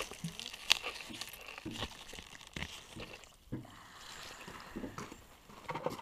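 Irregular soft crunches and rustles of green onions being pulled by hand from garden soil, the sharpest crunch just under a second in.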